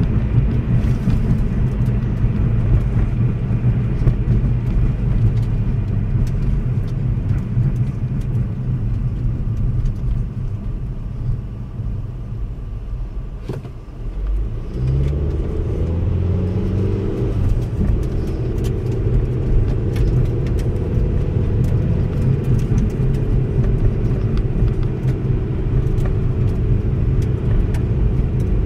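Car driving, heard from inside the cabin: a steady low rumble of engine and tyres on the road. The rumble eases off about twelve seconds in, then the engine note rises as the car speeds up again about fifteen seconds in, settling into a steady hum.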